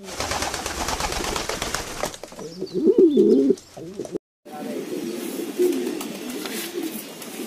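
Domestic pigeons cooing, a low wavering burble that runs steadily after a brief dropout a little over four seconds in. Before the dropout there is a hissing, crackly intro sound effect, then a louder wavering coo-like sound.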